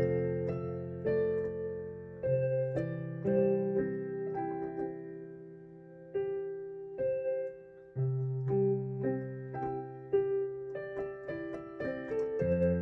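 Electronic keyboard played in a piano voice: held chords over low bass notes with a melody line on top, each new chord struck about every one to two seconds and fading away before the next.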